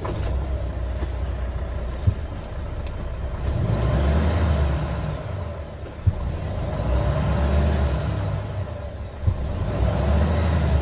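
Volvo D13K 13-litre straight-six diesel of a stationary truck running in neutral, heard from inside the cab: a steady low rumble that swells louder and falls back three times. A few short sharp clicks are heard over it.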